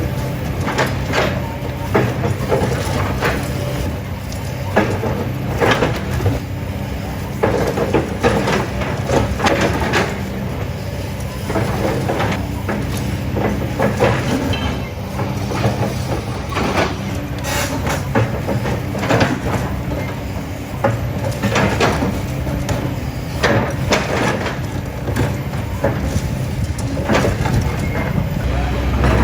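Steel-toothed rock-crushing machine working: a steady engine hum under many irregular crunches, knocks and grinding as rock and rubble are broken up.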